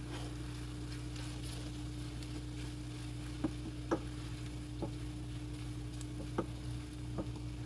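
Cabbage casserole with egg whites frying in a pan, a faint sizzle over a steady low hum, with a few light clicks of a utensil on the pan in the second half.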